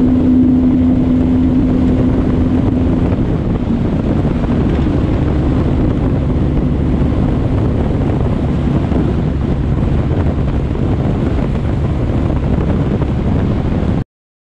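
Truck driving along a highway: steady engine drone and road noise with wind buffeting the microphone. A steady hum in the first few seconds fades out, and the sound cuts off abruptly near the end.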